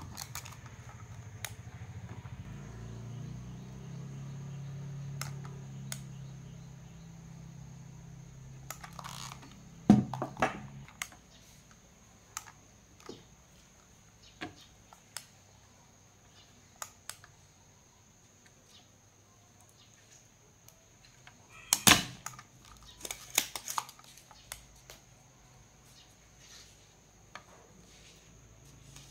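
Transformer soldering gun humming low and steady while it heats, cutting off about a third of the way in. A spring-loaded desoldering pump snaps with a sharp click at about that point, and again about two-thirds through, followed by a few smaller clicks.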